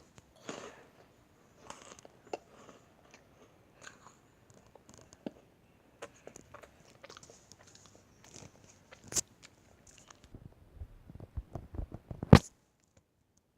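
Meringue cookies being bitten and chewed: irregular crisp crunches and crackles, with the loudest crunch near the end.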